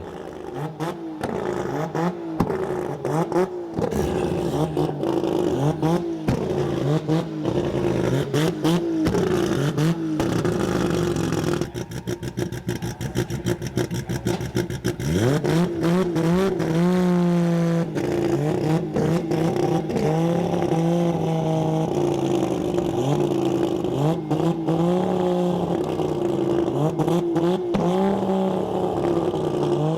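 Engine of a 2,700 hp Holden VL Commodore drag car running at high idle and revving unevenly, with crackles through it. It climbs in pitch about halfway through.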